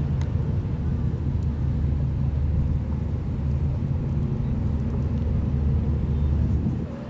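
A passing ship's engine running with a steady low rumble, which drops off sharply near the end.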